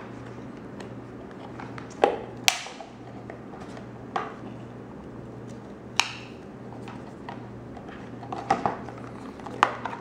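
Hands prying a clear plastic earbud tray out of a cardboard box: a handful of sharp plastic clicks and snaps, a second or two apart, the loudest about two and six seconds in, over a low steady hum.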